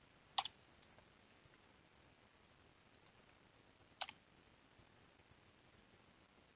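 A few isolated computer keyboard and mouse clicks over near silence. There is a single click about half a second in, two faint ones, and a sharp double click about four seconds in.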